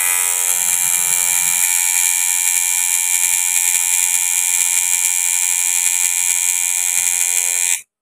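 Electric tattoo machine buzzing steadily as the needle lines a tattoo on skin, with a high, even drone that stops abruptly near the end.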